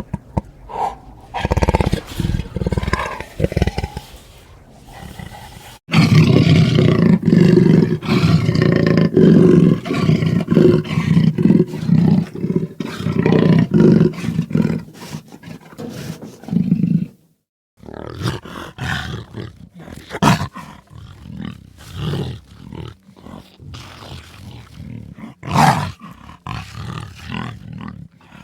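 Jaguar roaring and growling in a sound-effect recording: a long, loud stretch of deep calls that cuts off abruptly, then a series of shorter, quieter calls.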